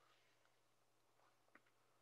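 Near silence: a pause in the talk, with only a faint steady low hum.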